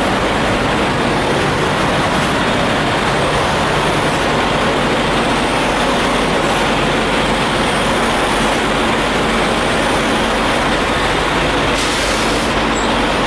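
Semi truck's diesel engine idling steadily, a constant low drone with a dense hiss over it.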